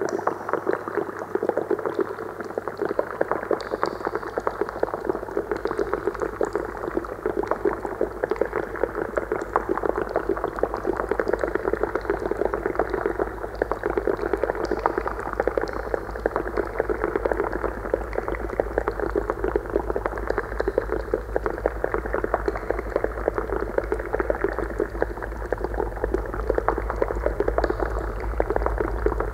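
Amplified bubbling water in glass vessels, heard as a dense, even crackle of bubbles. Under it runs a steady low hum, with a deeper drone coming in about three seconds in.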